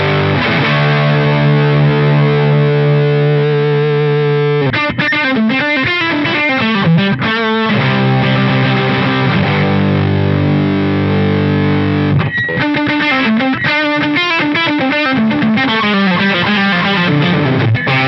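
Electric guitar played through a Fish Circuits Model One overdrive pedal into a Deluxe Reverb amp: an overdriven crunch with full lows and low mids, in a British-rock style. Held chords ring out, broken by quicker riffs and single-note lines about five seconds in and again from about twelve seconds.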